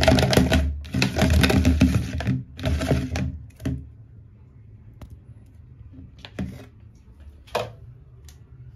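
Hand swishing and sloshing water in a plastic basin to dissolve shampoo, for about the first three and a half seconds. After that, a few light, separate knocks.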